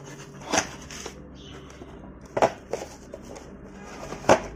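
Several separate knocks and clunks of hard car parts being handled and set down.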